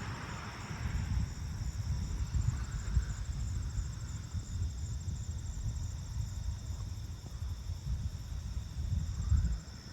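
Crickets chirping steadily in a high, even trill, over a low, uneven rumble that swells and falls throughout.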